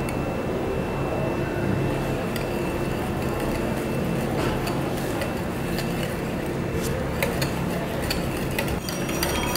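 Wire whisk clinking lightly against a glass mixing bowl while stirring powdered sugar into beaten eggs and milk; the clinks come more often near the end. A steady low hum runs underneath.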